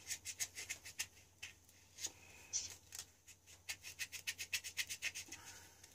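Faint, quick rubbing strokes of a small part being scrubbed clean by hand, coming in short runs with pauses of about a second between them.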